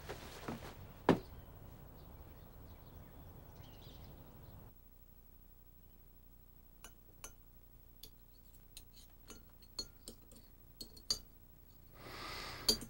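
Knife and fork clinking against a china plate: a dozen or so light, irregular clinks over the second half, after a single sharp click about a second in.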